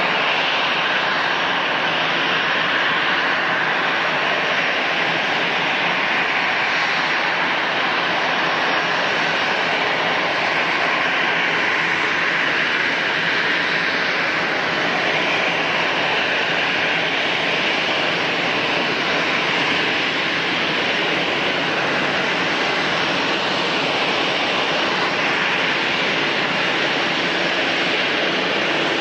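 Jet aircraft engines running, a steady rush of noise that holds level throughout with no build-up or fade.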